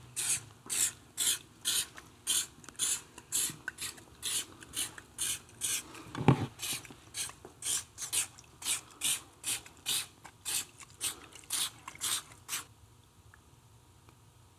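Aerosol spray can shaken in rapid even strokes, about two a second, its agitator ball rattling. The shaking stops near the end, and one sharp knock comes about halfway through.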